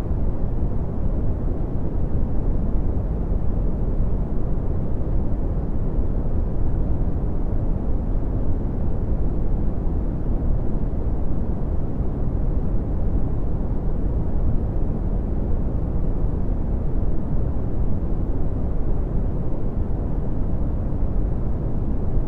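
Red (Brownian) noise: a steady, deep rumbling hiss with most of its energy in the bass, thinning out toward the treble, unchanging throughout.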